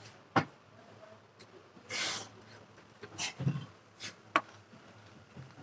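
Light clicks and taps of hand work with tools and parts at an electronics assembly bench, a few seconds apart, with one short hiss about two seconds in.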